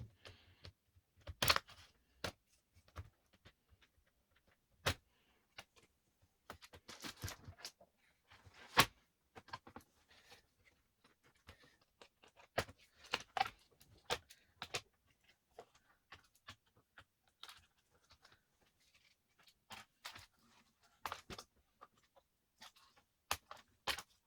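Irregular clicks, taps and knocks of a laptop's plastic and metal parts and small tools being handled during disassembly, with a short scraping stretch about seven seconds in.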